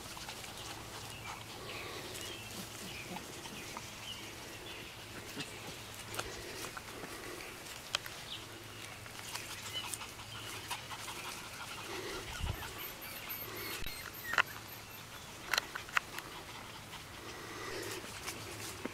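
Puppies playing, making small dog sounds in short, repeated bits, with scattered sharp clicks and rustling.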